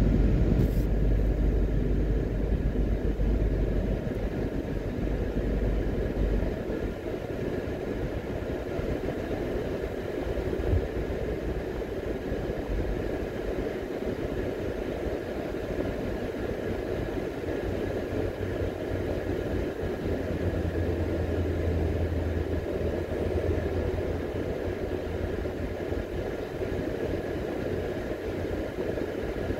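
Steady road noise inside a car cruising at highway speed: tyre and engine rumble, heaviest in the low end.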